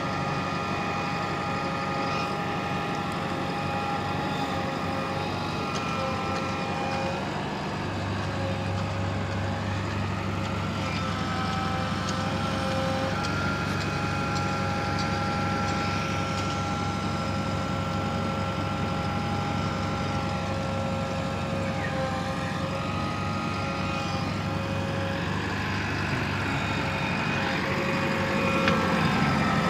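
JCB 3DX backhoe loader's diesel engine running steadily at working revs, with a steady whine over the rumble. Its note steps up and down in pitch a few times as the loader works the sand.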